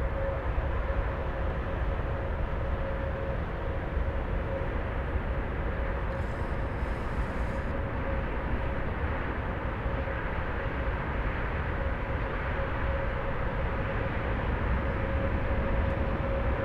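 Four-engined Airbus A340-600 jet engines running steadily: a constant high whine over a broad rumble, growing slightly louder near the end.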